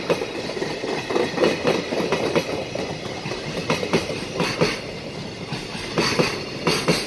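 Wheels of a passing container freight train clattering over rail joints at speed: sharp knocks in close pairs, one pair from each bogie's two axles, over a steady rolling rumble.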